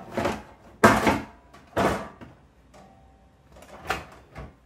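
Knocks and clunks of hands pressing a loose-fitting part into place on a portable diesel air heater's casing: several short knocks, the loudest about a second in, then a pause and two more near the end.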